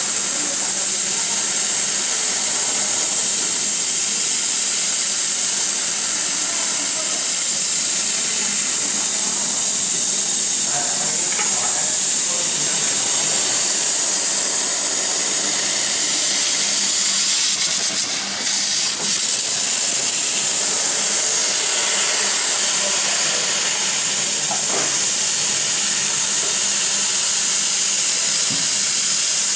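HT-1325 CO2 laser cutting machine cutting sheet metal: a steady, loud hiss of the cutting jet at the nozzle, dipping briefly about two thirds of the way through.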